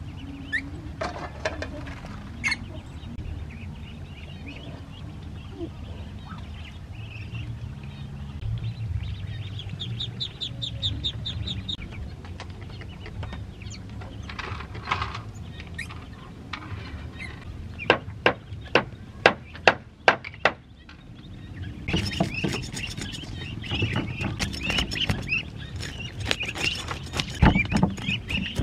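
Ducks and ducklings calling and peeping, with a quick run of high chirps and a few sharp knocks midway. In the last several seconds, a knife scraping scales off a fish in rapid strokes.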